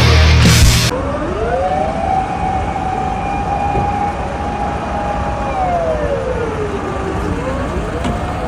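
Music cuts off about a second in, and a siren wails over background noise. It rises in pitch, holds steady for about four seconds, falls away, and begins to rise again near the end.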